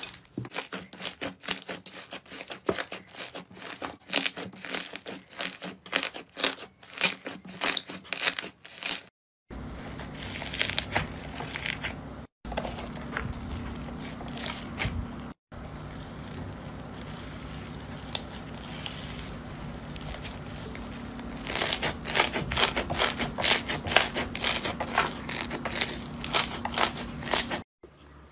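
Hands squeezing and kneading slime in a run of short clips: dense, rapid crackling and popping that comes in surges as the slime is pressed. A steady low hum sits behind the later clips.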